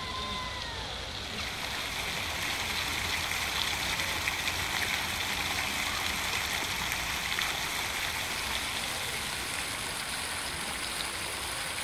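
Park fountain: water jets spraying and splashing down into a round pool, a steady rushing hiss that grows fuller about a second and a half in. A brief whistling tone sounds in the first second.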